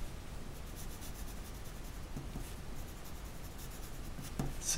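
Pencil writing on paper: a quiet, steady scratching of the lead as words are written out.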